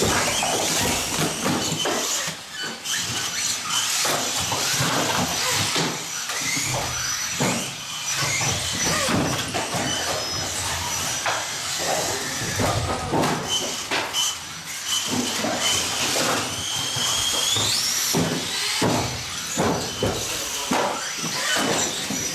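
Several 1/18-scale electric off-road RC cars racing on a carpet track. Their motors whine, rising and falling in pitch as they speed up and brake, over a steady rush of tyres on carpet and scattered clicks and knocks from the cars.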